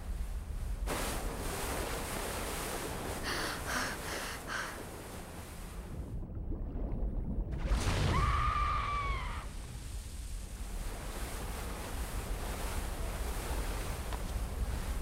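Ocean surf and wind sound effects, a steady wash of noise that turns muffled for a second or so about six seconds in. About eight seconds in, a single pitched call rises and then falls away.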